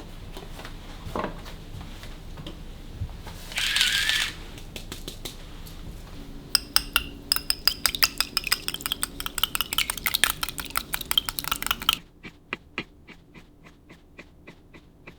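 Household objects being handled: a short hiss about four seconds in, then a dense run of quick clicks and clinks that ring a little, thinning out to occasional light taps near the end.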